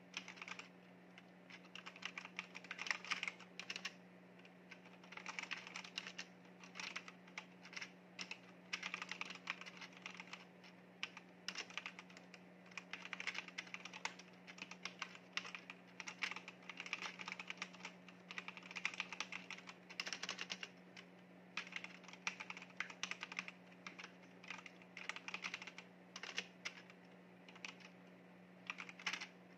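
Fast typing on a backlit mechanical keyboard: quick runs of key clicks in flurries of a second or two, broken by short pauses, over a faint steady hum.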